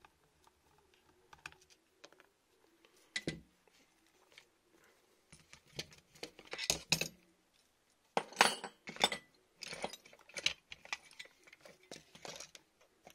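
An airsoft AEG's metal gearbox and small parts being handled on a work mat: scattered small clicks, a single knock about three seconds in, then louder metallic clinks and clattering from about six seconds on.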